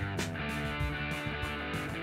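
Background music: a guitar-led track with a steady beat.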